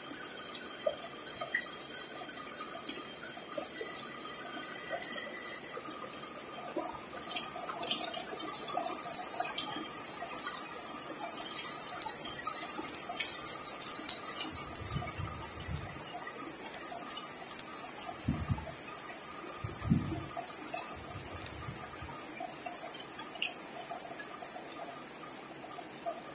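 Heavy rain pouring onto a balcony and its potted plants, with splashing and dripping water. The downpour swells about a quarter of the way in and eases off near the end, with a few short low rumbles in the middle.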